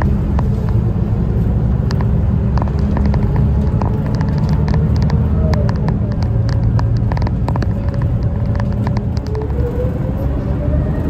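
Inside a city bus on the move: steady low engine and road rumble with scattered clicks and rattles from the cabin. A faint whine wavers in pitch and rises near the end.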